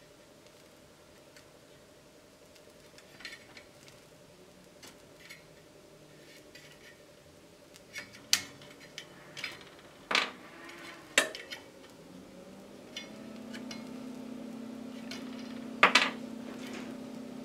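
Scattered sharp metallic clicks and clinks from work on a circuit board, over the faint steady buzz of the HHO electrolysis generator making gas, which grows louder about three-quarters of the way through.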